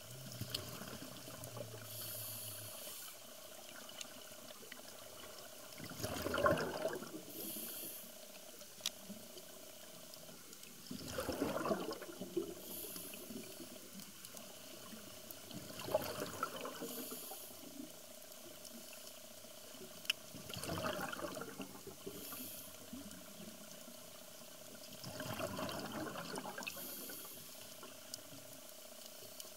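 Scuba diver breathing through a regulator underwater: a short hiss on each inhale, then a louder rush of exhaust bubbles on each exhale, repeating about every five seconds.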